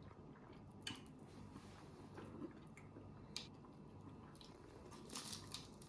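Faint chewing of a crunchy deep-fried vegetable spring roll, with a few soft clicks and a brief crisp crunch near the end.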